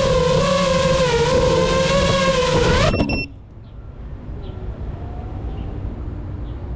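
FPV quadcopter drone's motors and propellers whining loudly, pitch wavering with the throttle, then cutting off abruptly about three seconds in as the drone comes down on the road, leaving only a faint background.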